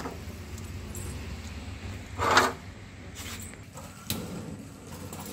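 Iron single-burner LPG stove being lit: a short burst of noise about two seconds in, then a sudden rise in noise about four seconds in as the burner catches, over a steady low rumble.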